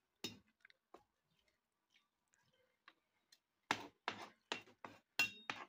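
Metal ladle knocking and scraping against the side of a cooking pot while stirring spinach and lamb: a few faint clicks, then a quick run of about six louder knocks near the end, one of them ringing briefly.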